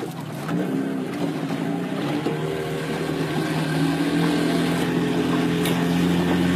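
Outboard motor of a small open boat running under way, its pitch rising over the first couple of seconds as it picks up speed, then holding steady.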